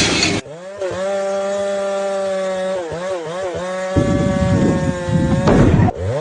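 Chainsaw running at high speed, its pitch dipping a few times, then cutting into wood for about two seconds near the end.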